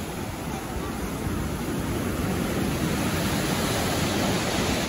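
Sea surf breaking in white foam around concrete breakwater blocks and washing over a pebble beach: a steady rushing roar, with wind on the microphone.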